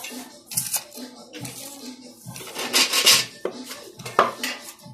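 A length of metal angle bar being handled: irregular metallic clinks and scrapes, densest about two and a half to three seconds in, then a sharp knock about four seconds in.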